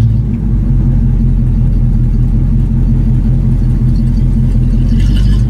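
1968 Oldsmobile 442's V8 running steadily at low speed, a deep, even engine note heard from inside the cabin.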